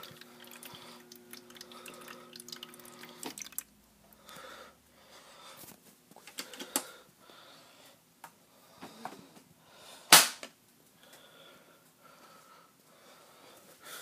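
Quiet handling sounds around a refrigerator: scattered faint clicks and knocks, and one sharp knock about ten seconds in as the door is worked open. A steady low hum at the start cuts off abruptly about three seconds in.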